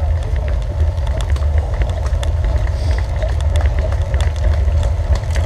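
Wind and road rumble on the microphone of a camera riding on a road bicycle, with scattered small clicks and rattles.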